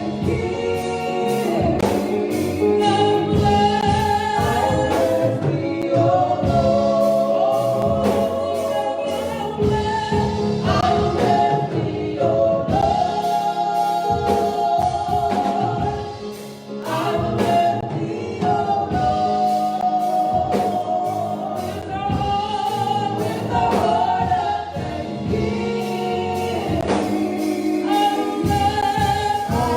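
Gospel praise team singing a worship song in chorus with instrumental accompaniment and a steady beat.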